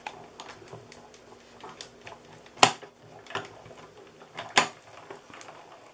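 Hand-cranked Stampin' Cut & Emboss die-cutting machine feeding a die and plate sandwich through its rollers: a run of faint clicks and creaks, with two sharper clacks about two seconds apart, the first around the middle.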